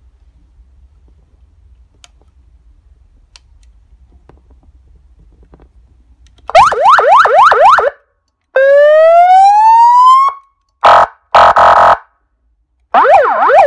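ES314 150 W four-tone electronic vehicle siren running through its tones. After several seconds of faint hum with small clicks, it gives a rapid up-and-down yelp of about three sweeps a second for a second and a half, then one long rising wail, then two short steady horn blasts, then the fast yelp again near the end.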